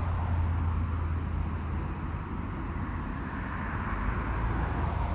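Steady outdoor background noise: a low rumble with a hiss over it, with no distinct events.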